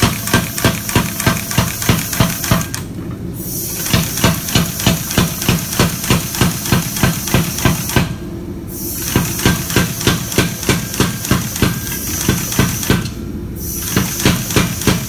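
Big BLU 110 pneumatic power hammer striking red-hot steel bar in a fast, even run of blows, about four a second, with a steady hiss of air. Three short pauses break the run. These are the smoothing passes on a rough-forged knife point.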